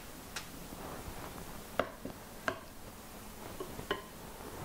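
Two metal spoons scooping a thick chocolate, fruit and nut mixture from a glass bowl, with a few light, separate clinks of spoon on spoon and glass.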